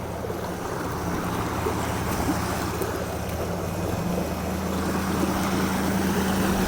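A vehicle engine running steadily, its hum growing a little stronger about four seconds in, over the rush of flowing floodwater.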